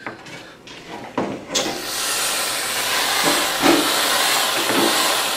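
Aerosol can of whipped cream spraying onto a paper plate: a steady, continuous hiss starting about a second and a half in, after a few short knocks.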